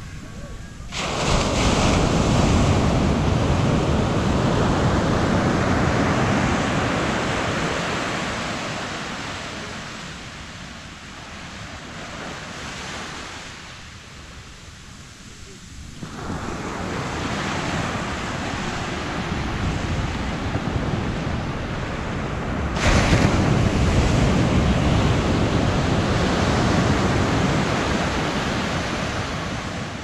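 Ocean surf: waves breaking and washing up a sandy beach, each one rushing in and then slowly fading. Two loud surges begin suddenly, about a second in and again near 23 seconds in, with a quieter swell building in between.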